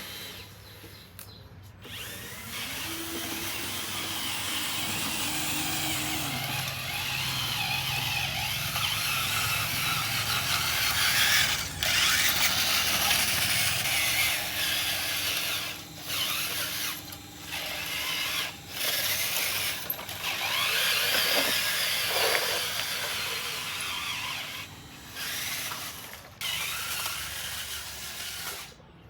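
Small electric motors and gear drives of radio-controlled construction models whirring and grinding under a rushing hiss, the level rising and falling with several brief drop-outs.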